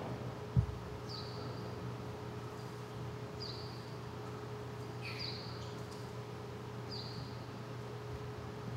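Dwarf mongooses giving short, high chirps, each dropping slightly in pitch, about every two seconds, over a steady low hum. A single low thump about half a second in.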